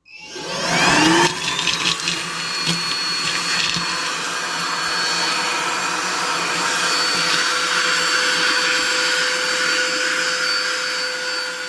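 Kärcher CVH 2 handheld vacuum cleaner switched on, its motor whine rising over about the first two seconds as it spins up, then running steadily with a high whine over the rush of air, fading near the end.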